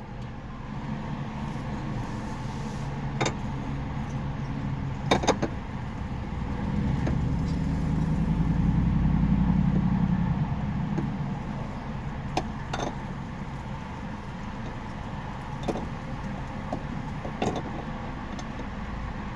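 Steady low hum of an idling car heard from inside the cabin, swelling louder for a few seconds in the middle, with scattered sharp clicks and knocks.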